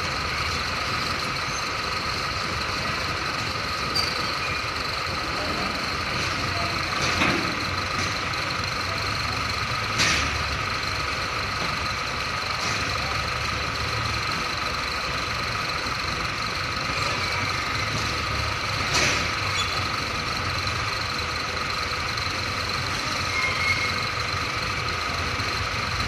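Hino container truck's diesel engine running at low revs as the rig manoeuvres slowly, with a steady high whine over it. A few sharp knocks come several seconds apart.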